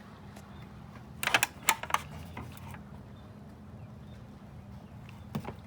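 Light clicks and taps of small metal engine parts being handled: a quick cluster of several about a second in, and a single one near the end.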